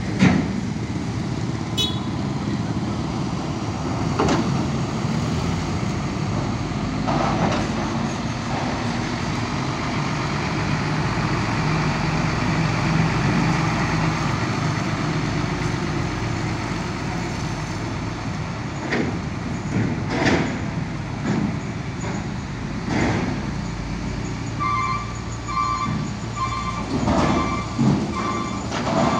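Trucks and motorcycles driving off a ferry: diesel engines rumbling steadily, one truck passing close, with several sharp clanks and thumps scattered throughout and a pulsing beep repeating near the end.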